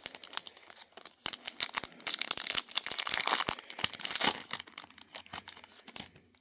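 A foil trading-card pack torn open and its wrapper crinkled, a dense crackle that is loudest in the middle and stops abruptly near the end.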